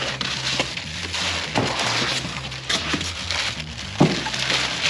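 A foam packing insert being pulled out of a cardboard box, then the plastic wrapping inside handled: rustling and scraping of foam and cardboard with several knocks, the loudest about four seconds in.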